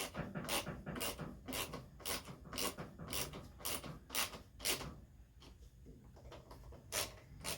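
Socket ratchet clicking in quick strokes, about two clicks a second, as two screws are tightened. It stops about five seconds in, with one more click near the end.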